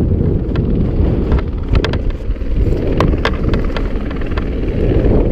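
Helicopter running close by, a heavy steady rumble with wind buffeting the microphone. A few sharp clicks come through near the middle.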